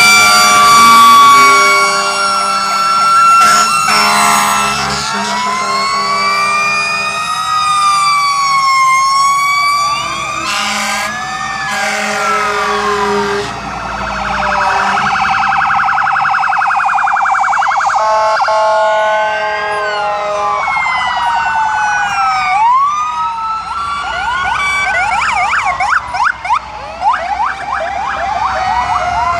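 Several fire-engine and emergency-vehicle sirens going at once as a procession passes, their rising and falling wails overlapping at different pitches. A steady held tone sounds at the start, and stretches of fast yelp come in around the middle and again near the end.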